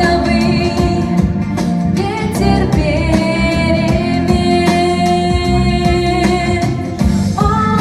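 A song: a singing voice over instrumental accompaniment, holding one long note for about four seconds in the middle.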